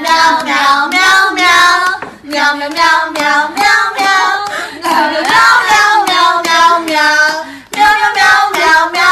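A high voice singing a tune in short, rhythmic syllables, with brief pauses about two seconds in and near the end.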